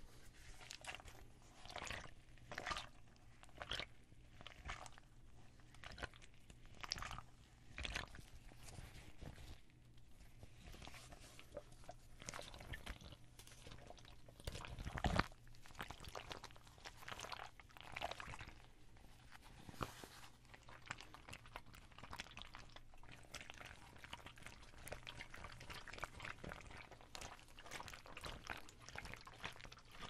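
Hands squeezing and rubbing a soft blue pouch, giving faint, irregular short handling sounds, one louder one about halfway through.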